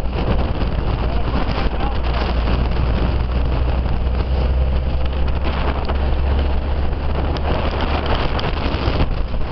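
Open military jeep driving along a road: a steady low rumble of engine and tyres, with wind buffeting the microphone.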